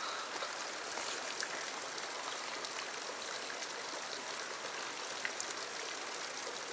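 Steady rushing of running water, like a stream or trickle flowing over rock.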